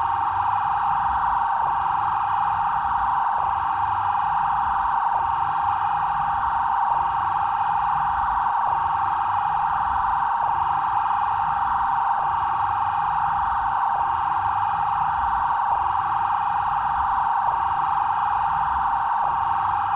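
Brazilian BAEP police siren sounding its 'trail' tone: a steady electronic tone with a short break about every second and three quarters.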